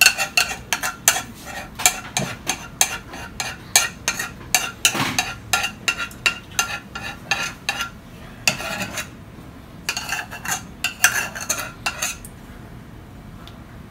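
A spoon scraping and tapping white sauce out of a saucepan, in quick repeated strokes against the pan. The strokes stop near the end.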